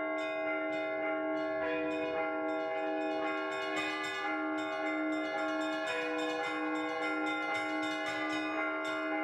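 Russian Orthodox church bells rung by hand in a trezvon: quick, steady strokes on several bells whose notes ring on into one another, with a low bell note sounding about twice a second.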